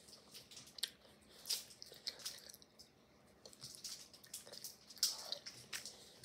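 Close-up wet chewing and lip-smacking of a soft, chewy Airheads taffy candy, in irregular smacks, the loudest about five seconds in.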